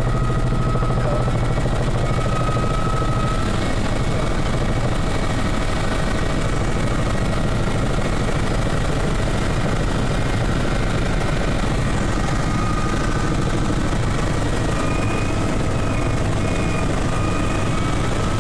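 Helicopter engine and rotor noise heard inside the cabin in flight: a steady, loud low drone, with faint high whistling tones that come and go.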